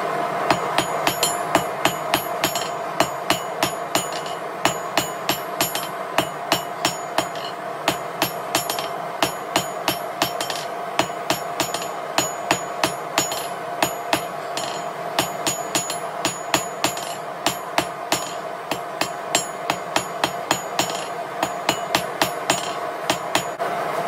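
Hand hammer striking red-hot steel bar on an anvil, blow after blow at about two to three a second in runs with short pauses, each strike ringing briefly. A steady rushing noise runs underneath.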